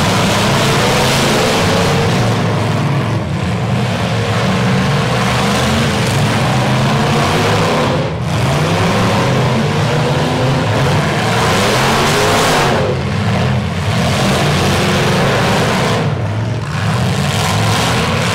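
Demolition derby pickup truck engines revving hard, several at once, their pitch rising and falling as the trucks push and ram, with brief let-offs of the throttle a few times.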